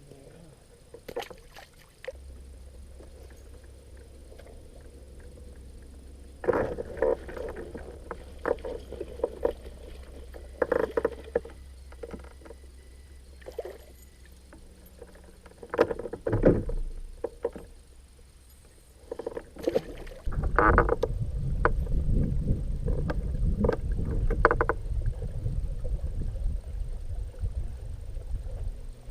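Knocks and clatter of gear being handled aboard a fishing boat over a low steady hum, then a louder low rumble from about twenty seconds in.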